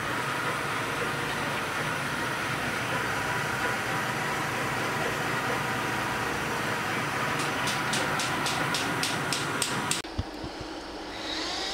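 Steady machine hum and hiss, with a run of sharp ticks, about three a second, toward the end. The noise cuts off abruptly and gives way to a quieter stretch.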